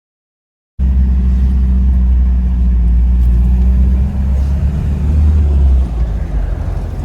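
Motor vehicle running with a steady low engine drone and road rumble, cutting in suddenly from silence about a second in and easing slightly near the end.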